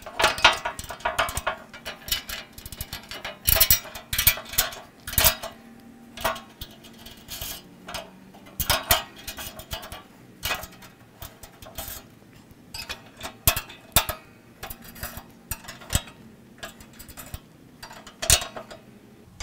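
Steel carriage bolts, nuts and a steel side sheet clinking, knocking and scraping as they are fitted by hand to a tractor shovel's wall and blade pivot arm: many short, irregular metallic clicks.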